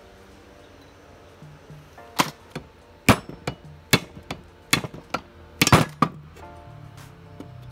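Sharp metal knocks and clanks, about half a dozen starting about two seconds in, as the crankshaft is worked out of a Honda GX160's cylinder block and set down on a wooden workbench. Quiet background music runs underneath.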